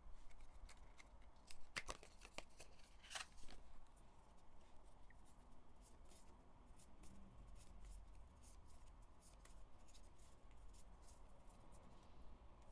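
Photocards being handled: slid out of their card sleeve and flipped through by hand. Light clicks and flicks of card against card, the loudest about two and three seconds in.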